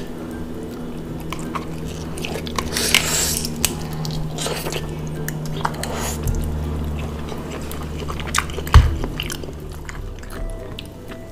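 Close-up eating sounds of shellfish: chewing, and clicking and cracking of clam shells being pried apart with gloved hands. One sharp knock stands out about nine seconds in.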